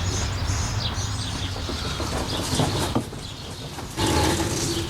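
Birds chirping faintly over a low steady outdoor hum, with a short steady low tone about four seconds in.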